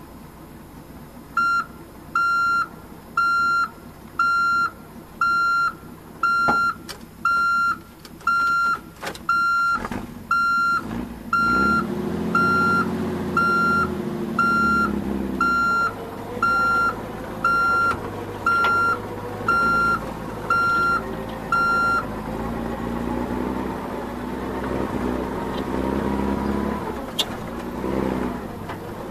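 Truck reversing beeper sounding a steady beep about once a second for some twenty seconds, then stopping. A truck engine comes in under it about halfway through, its pitch rising and falling, and a few sharp knocks fall among the beeps.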